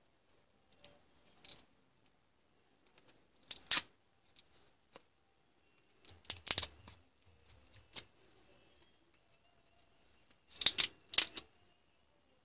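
Clicks, scrapes and rattles of an old Ni-Cd drill battery pack being taken apart by hand, its cylindrical cells and nickel connecting strips knocking and being worked loose. The sounds come in short bursts, the loudest about four seconds in, just after six seconds in, and near the end.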